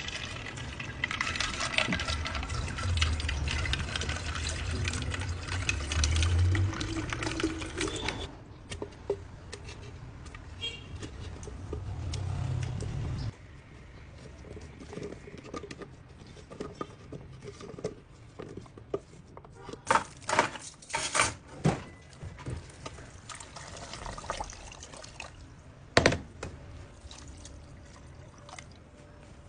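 Liquid being poured and sloshed for the first several seconds, followed by quieter kitchen handling with a few sharp clinks of glass or utensils about two-thirds of the way through and again near the end.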